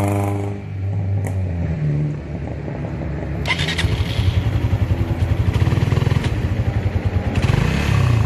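Suzuki Raider underbone motorcycle's engine running. It grows louder with a fast, even pulsing a bit past a third of the way in.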